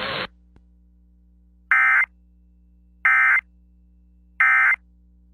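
Emergency Alert System end-of-message signal: three short bursts of buzzing digital data tones about 1.4 seconds apart, marking the end of the alert. Just before them the broadcast hiss cuts off, and a faint low hum runs underneath.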